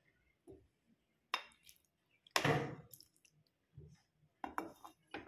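A few short knocks and clinks, the loudest about two and a half seconds in with a brief rattle trailing after it.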